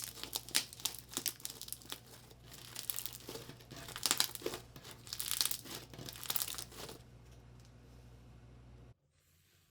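Slime squeezed and pressed by hand, with dense crackling and crinkling full of small sharp pops. It stops about two-thirds of the way through, leaving only a low hum before a sudden drop to near silence near the end.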